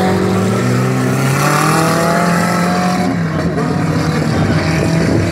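Dirt-track race car engine accelerating hard as it pulls away, climbing in pitch, dropping at a gear change about three seconds in, then climbing again.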